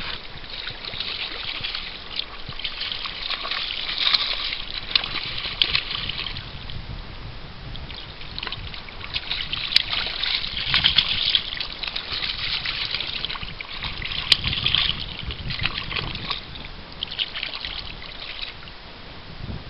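A hooked fish thrashing at the water's surface near the bank, splashing in irregular bursts again and again. Two sharp clicks sound over the splashing, about halfway through and again a few seconds later.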